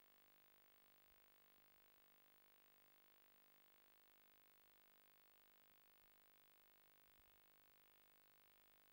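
Near silence: a faint, steady hum and hiss with no other sound.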